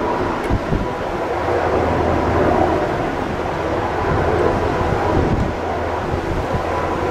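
Helicopter in flight, a steady drone of rotor and engines, with wind buffeting the microphone now and then.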